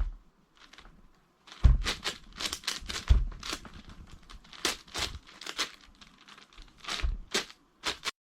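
A 10x10 Rubik's cube being turned one-handed: irregular plastic clacking and rattling as its layers slide, with a few dull knocks.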